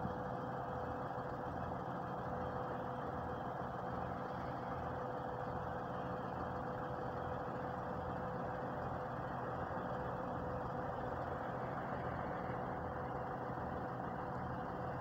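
Heavy diesel engines idling steadily, an even drone with a steady whine over it and no revving.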